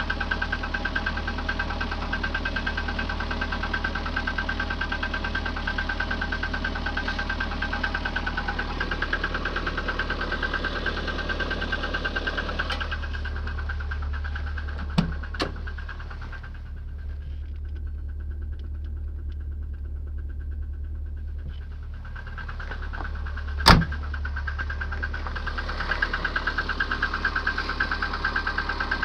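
VAZ-2110 16-valve engine running at idle with a fast, regular knock, a cold-start knock that the owner says fades as the engine warms up. About halfway through, the sound goes muffled for some ten seconds, with two clicks and one loud thump before it comes back.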